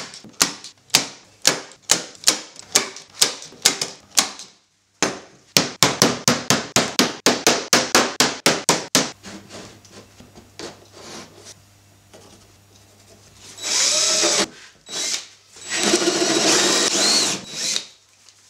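Staple gun firing staples into a plywood door panel in a fast run of sharp clicks, about four a second, with a short break partway through. Near the end a drill bores hinge-cup holes into the oak-faced ply door in two loud runs.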